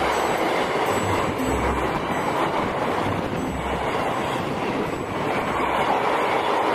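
Freight train of empty double-deck car-carrier wagons rolling past: a steady rushing noise of steel wheels on rails.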